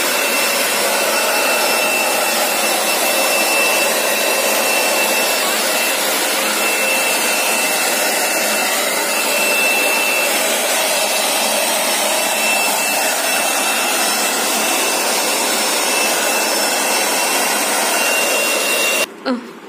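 Handheld hair dryer running steadily, a thin high whine over the rush of air, blowing on a wet Persian cat's coat. It cuts off suddenly near the end.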